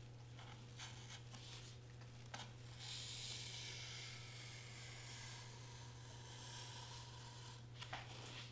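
Craft knife blade drawn through foam board along a traced line: a faint, scratchy scraping that builds in the middle of the stroke, with a few light clicks as the blade moves.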